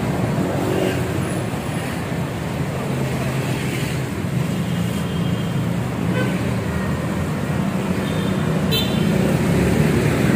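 Steady road traffic noise: a vehicle engine's low, even rumble with road noise, and a short high beep about nine seconds in.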